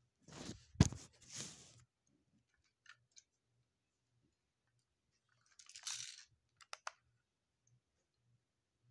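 A plastic BB/airsoft pistol being handled. There is a rustle and one sharp, loud click about a second in, a few faint ticks, then another rustle and two quick clicks about seven seconds in.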